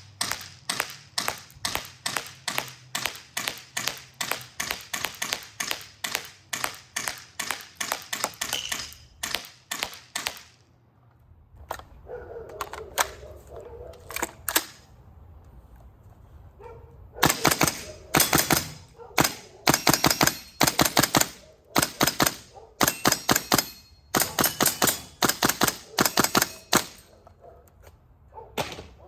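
GHK HK416A5 gas-blowback airsoft rifle firing: a steady string of single shots about three a second, then after a pause several louder rapid bursts.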